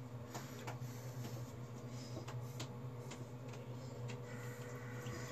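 A steady low hum under a scatter of light clicks and taps, about a dozen irregular ones, as small things are handled close by.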